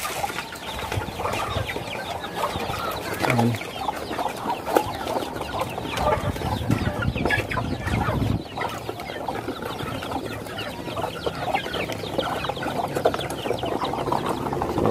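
Backyard flock of native chickens clucking: many short, irregular clucks overlapping throughout.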